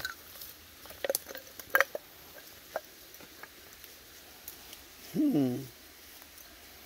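A wooden stick poking and scraping among stones and leaf litter: scattered light clicks and knocks, most of them in the first three seconds. A short hum from a man's voice about five seconds in.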